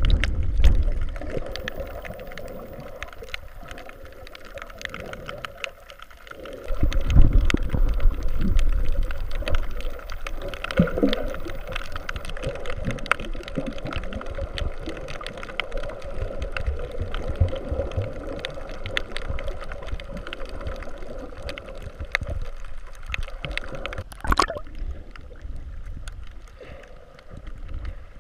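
Water sloshing and gurgling around a submerged camera, heard muffled from under the surface, with low rumbling surges about seven seconds in and a single sharp knock near the end.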